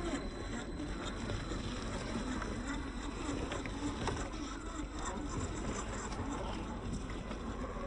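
Small electric motor and gears of a radio-controlled scale crawler whirring steadily as it drives.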